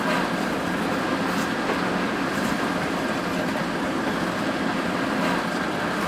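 Steady running noise of a Hino RN285 coach under way, a continuous low rumble with a faint steady whine above it.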